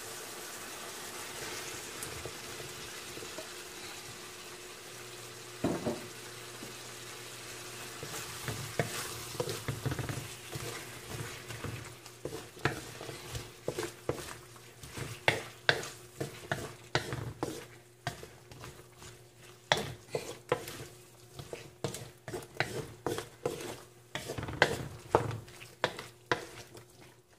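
Tomatoes and onions sizzling in oil in an aluminium wok, a loud thump about six seconds in as sliced chayote goes into the pan, then a wooden spatula stirring and scraping the vegetables against the wok in many quick, irregular strokes over the steady sizzle.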